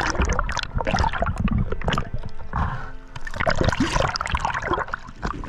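Bubbles and churning water heard through an underwater camera as a spearfisher moves just below the surface, with music underneath.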